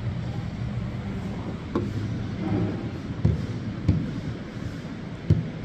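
Four dull thumps spread across a few seconds, over a steady low hum.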